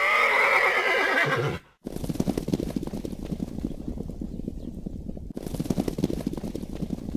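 A horse whinny sound effect for about the first second and a half, a long wavering neigh. After a short gap comes a fast, steady run of galloping hoofbeats that breaks off briefly about five seconds in and then carries on.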